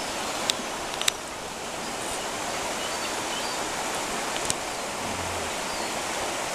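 Steady rushing of a fast, shallow river over its riffles, with a few short sharp clicks about half a second, a second and four and a half seconds in.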